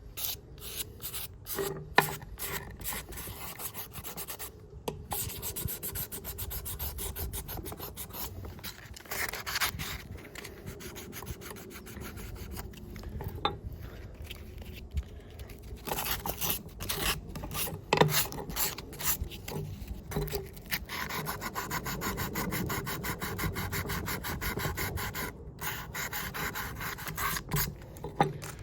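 Scrubbing the grimy metal of Felco No. 2 pruning shears: quick back-and-forth rubbing strokes in long runs, with an occasional sharp click.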